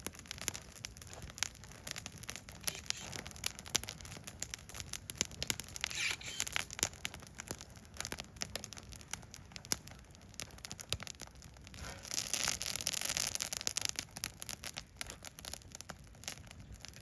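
Wood fire in a Solo Stove Yukon fire pit crackling, with many irregular sharp pops. About twelve seconds in there is a louder rushing noise lasting roughly two seconds.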